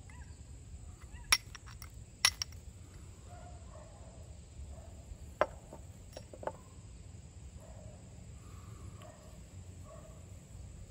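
Flint struck against a steel striker: two sharp metallic strikes about a second apart with a few lighter ticks between them, then a few quieter clicks a few seconds later.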